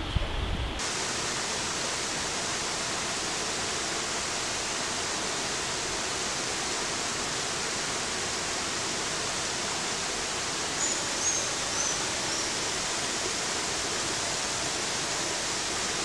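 Steady rush of a small waterfall cascading over rock slabs into a pool, with a few faint high chirps about eleven seconds in.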